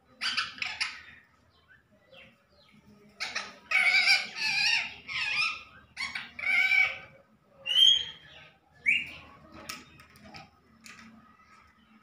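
Rose-ringed (ringneck) parakeet calling and chattering in a series of shrill bursts: a short cluster just after the start, a dense loud run from about three to nine seconds in, then fainter scattered calls near the end.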